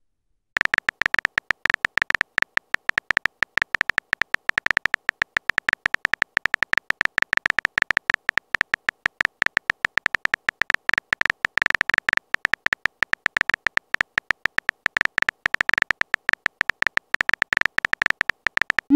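Phone keyboard typing sound effect: a rapid, even stream of short clicks with a slight high tone, many a second, one for each letter typed. It starts about half a second in.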